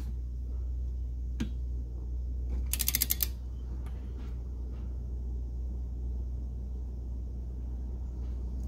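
Torque wrench ratchet clicking as the turbo pedestal bolts are tightened toward 18 ft-lb: a single click about a second and a half in, then a quick run of clicks about three seconds in. A steady low hum runs underneath.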